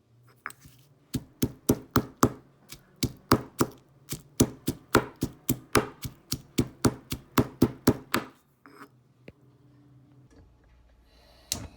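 Garlic and chilies being smashed: a fast run of hard, even strikes, about four a second, that stops about eight seconds in. A single louder knock comes near the end.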